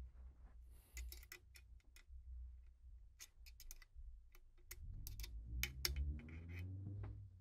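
Faint scattered metal clicks and taps of a punch, small screwdriver and the safety and detent pin against the steel trigger housing as the parts are worked into line. In the second half a low, drawn-out hum rises slightly in pitch.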